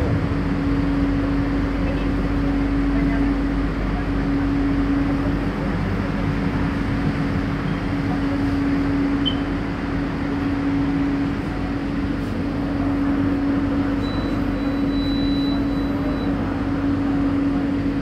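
Steady electrical and ventilation hum inside a standing LRT Jabodebek train car, with one low held tone over a constant rush of noise.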